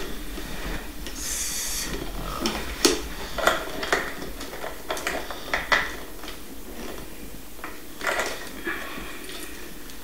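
Handling noise of a metal detector being assembled: irregular clicks, taps and light knocks as its coil cable is wound around the shaft and clipped in place, with a short hissing rustle about a second in.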